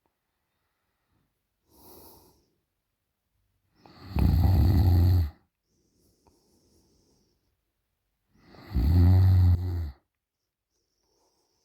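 A sleeping woman snoring loudly with her mouth open: two long snores about four and a half seconds apart, with fainter breaths between them.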